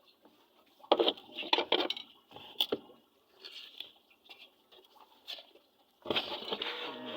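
Irregular clatter and knocks of hard objects being handled, in clusters from about a second in, then a denser, continuous rattling clatter from about six seconds in.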